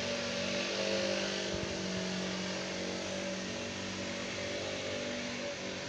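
Steady engine drone: a constant hum of a few held tones over an even hiss, with no rise or fall in pitch.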